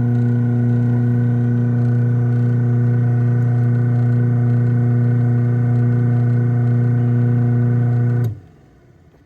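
Craftsman 139.53930DM half-horsepower chain-drive garage door opener running a close cycle: a loud, steady motor hum with its drive gear spinning clockwise. It stops abruptly about eight seconds in as the cycle ends.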